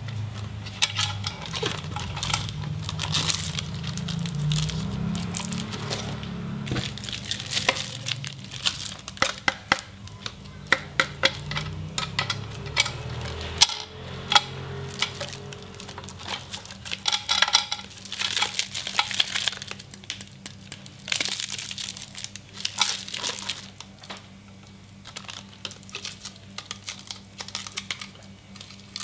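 Clear plastic wrap crinkling in bursts as hands handle and unwrap a monitor's stand base and neck.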